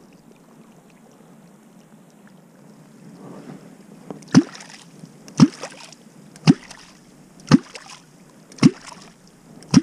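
A ZECK L-Clonk catfish clonk struck into the water six times, about one stroke a second starting some four seconds in. Each stroke is a deep, hollow gulping pop that rises in pitch, with a splash, the sound used to call wels catfish up to the bait.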